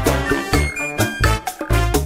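Upbeat background music with a steady beat, bass and drums.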